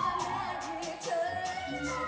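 Pop song with a sung vocal line over a steady drum beat, played as the music for a jazz dance solo.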